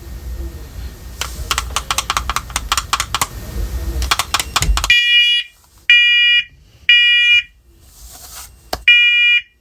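First Alert Onelink talking smoke and carbon monoxide alarm sounding its smoke alarm during a button test. Its piezo horn gives loud, shrill beeps in the three-beep evacuation pattern: three beeps about a second apart, a pause, then the next set starting near the end. Before the beeps come a few seconds of rapid crackling clicks.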